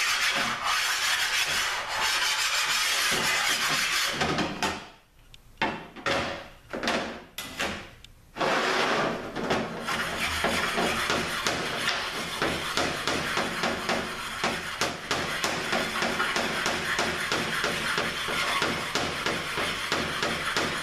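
Aluminium 42RLE transmission valve body being flat-sanded by hand on a flat stone: a steady scraping rasp of rapid back-and-forth strokes. Between about four and eight seconds in it breaks off into a few separate strokes, then the fast rubbing resumes.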